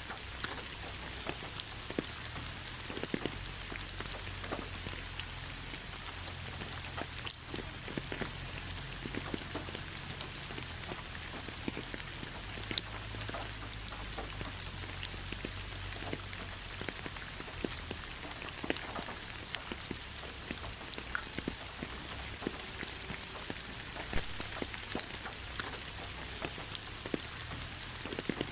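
Autumn rain falling on fallen leaves: a steady patter of many small drops, with scattered sharper taps of single drops.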